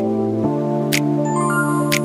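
Background music of sustained, slow chords that change about half a second in, with a sharp tick about once a second keeping a slow beat.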